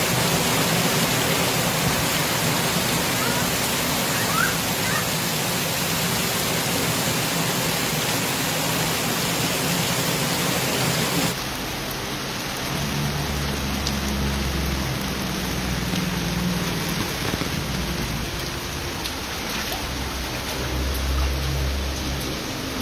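Heavy tropical downpour, a dense steady hiss of rain on vehicles and foliage. About halfway through it changes to a quieter steady rush of rain and flowing floodwater with a low rumble underneath.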